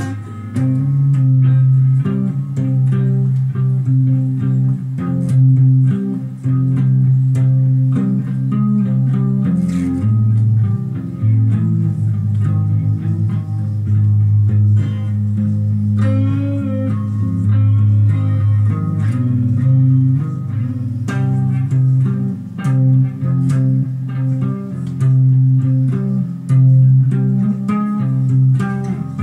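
Electric guitar being played: a steady run of plucked low notes, with a wavering higher line about 16 seconds in.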